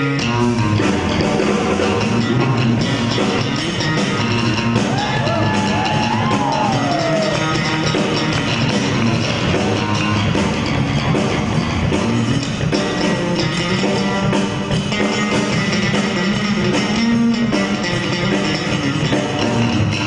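Electric bass guitar and drum kit playing a loud rock jam together, live, with no other instruments. The bass drives a busy line over steady drumming, with a brief gliding note about five seconds in.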